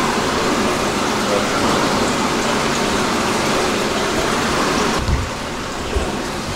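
Steady rushing noise like running water, which changes and drops a little about five seconds in, with a few low thumps.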